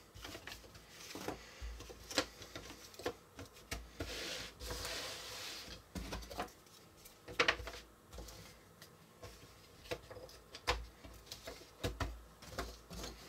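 Cardboard jigsaw puzzle pieces handled on a plastic puzzle tray and a tabletop: scattered light taps and clicks as pieces are lifted out, set down and pressed into place, with a brushing, sliding sound for a couple of seconds in the middle.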